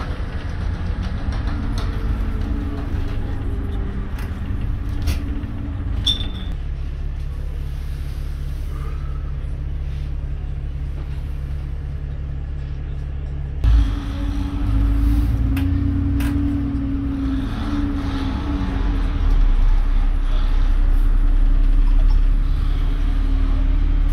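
A London bus engine running, heard from inside the bus. A steady low drone goes through the first half, then a thump comes just past the middle and the engine note gets louder, rising and falling in pitch as the bus pulls away.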